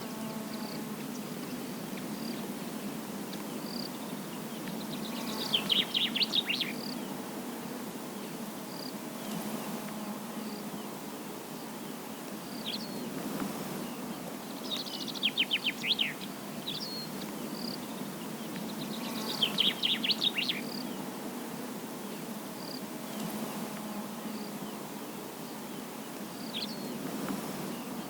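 A bird singing a short, fast run of high descending notes, three times, with scattered single high chirps between, over a steady low background hum.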